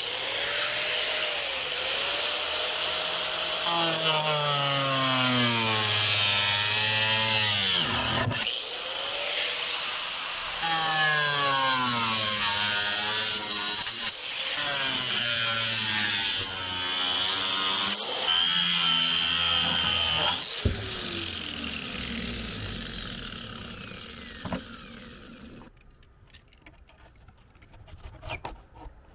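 Angle grinder with a thin cutoff wheel cutting through a box truck's sheet-metal roof: a loud whine and cutting screech. The motor's pitch sags and recovers again and again as the wheel bites, with short breaks between passes. It winds down about twenty seconds in and fades out a few seconds later.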